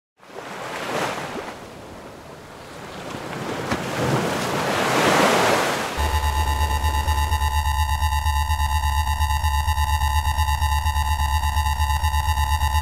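A rushing, surf-like noise swells twice, then cuts abruptly about six seconds in to electronic intro music: held synthesizer tones over a pulsing bass.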